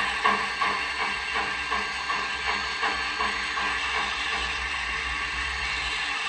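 G-scale model steam locomotive (USA Trains FEF-3) running under test: rhythmic steam chuffs from its sound decoder's loudspeaker come faster and faster until the beats blur together, over the steady low hum of the Pittman motor and gear drive turning the wheels.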